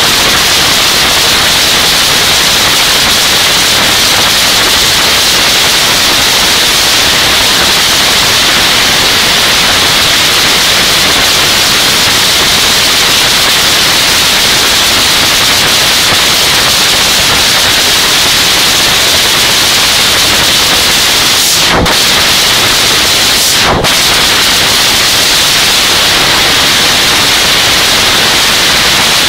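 Supercharged nitro-burning Top Fuel drag racing engine running on a trailer stand, so loud that the recording is overloaded into a steady, distorted static-like noise. The sound briefly drops out twice about three quarters of the way through.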